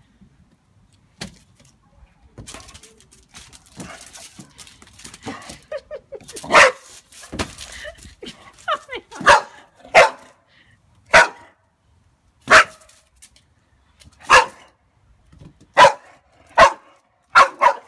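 Boxer dog barking at a balloon it is scared of: about ten short single barks, roughly a second apart, starting some six seconds in after a quiet stretch.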